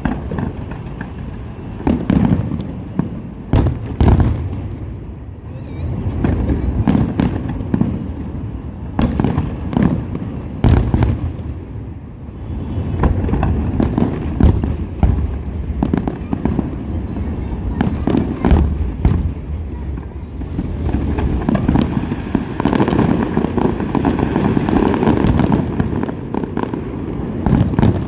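Aerial fireworks show: shells bursting in rapid succession, many sharp cracks and booms over a continuous rumble.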